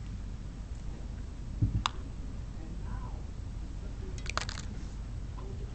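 Wire strippers cutting and stripping black solid-core hookup wire: a soft knock and a sharp click a couple of seconds in, then a quick cluster of clicks as the jaws close on the wire near the end, over a low steady hum.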